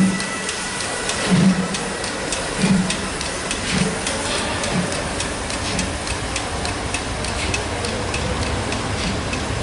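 Steam locomotive pulling away with its train: heavy exhaust chuffs about once a second, quickening a little and fading as it moves off, over a steady rumble and clicking of wheels on the track.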